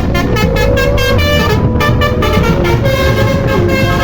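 Basuri telolet horn, a musical bus horn, playing a slow melody of held notes that step up and down in pitch over a fast, even pulse.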